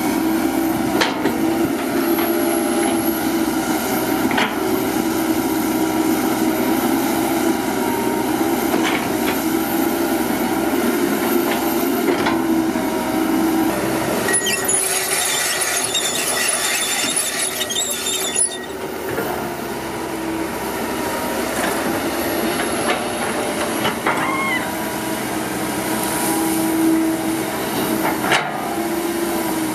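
Komatsu PC200 hydraulic excavator working: its diesel engine and hydraulic pump drone steadily under load, with a few sharp metallic knocks from the bucket and boom. About halfway through, a hissing, scraping rush lasts some four seconds as the bucket dumps its soil.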